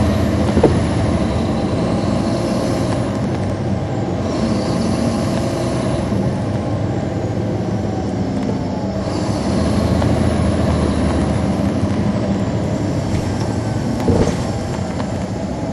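A transit bus's Caterpillar C13 ACERT inline-six diesel engine running under way, heard from inside the bus as a steady hum, with a high whine that rises and falls in pitch a couple of times. A sharp click comes about half a second in, and a knock near the end.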